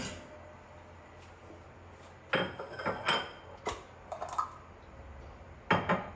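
Ceramic dishes clinking as a plate is set down on a granite countertop: several sharp clinks with brief ringing, the loudest near the end.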